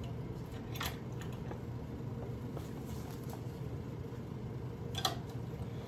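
Steady low mechanical hum, like a fan running in a small room, with a faint click about a second in and another near the end.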